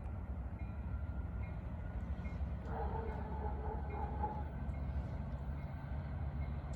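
Union Pacific diesel freight locomotive running past in a steady low rumble, with a faint brief two-note tone near the middle.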